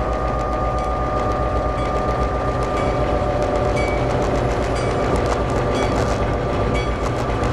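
GM-engined DSB MY diesel locomotive running steadily under way: a low pulsing engine rumble with a steady whine, and light scattered clicks of the wheels on the track.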